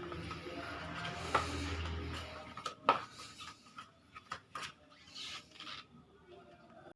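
Scattered, uneven footsteps and scuffs, the sharpest about a second and a half in and about three seconds in, over a low hum that fades out a little after two seconds.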